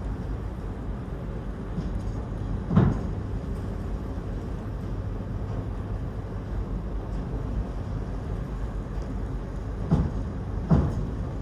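Steady low rumble of a car ferry's engines during docking, with three heavy clunks: one about three seconds in and two close together near the end.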